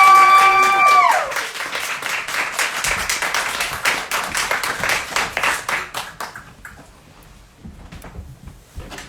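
Audience applauding and then dying away about six seconds in. A held whoop from someone in the crowd rings over the applause and falls off about a second in.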